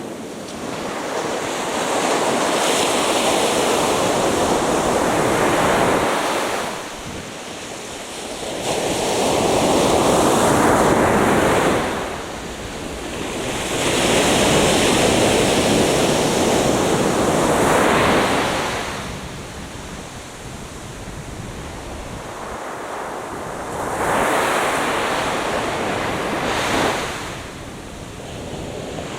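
Atlantic Ocean waves breaking and washing up a beach: four surges of surf noise, each lasting several seconds, with quieter lulls between them and a longer lull past the middle.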